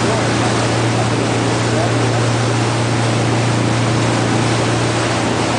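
Ferry engine running steadily with a constant low hum, under an even hiss of wind and water.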